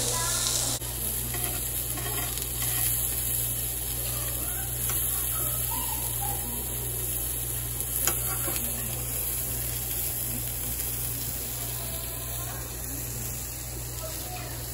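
Pork belly and sliced vegetables sizzling steadily on a stainless tabletop barbecue grill, with one sharp click of metal tongs about eight seconds in.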